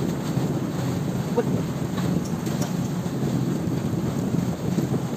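Steady rumble of an outrigger fishing banca under way at sea, with wind buffeting the microphone and water rushing past the hull and outrigger floats.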